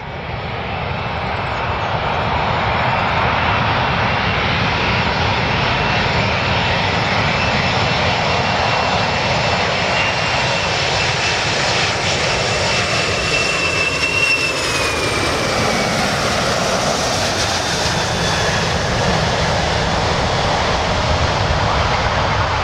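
Boeing 747 jetliner's four turbofan engines on final approach to land: a steady loud jet roar with a high engine whine that slides down in pitch about fourteen seconds in as the aircraft passes.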